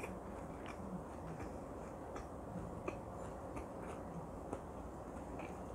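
Quiet, closed-mouth chewing of grilled marinated pork galbi: soft, faint mouth clicks at irregular intervals.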